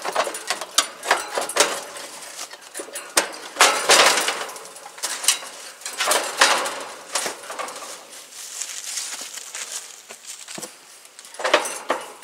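Sheet-metal fan-grille top cover of an outdoor heat pump unit being set down on the cabinet and shifted into place: repeated irregular metal clanks, rattles and scrapes.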